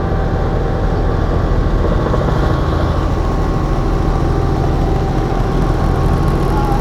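Helicopter's engine and rotor running steadily, heard from inside the cabin as a loud, constant low drone with a fast pulsing beat.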